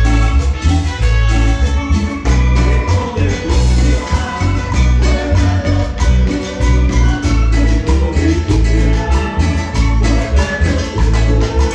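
Cumbia music with a steady dance beat and a strong bass line.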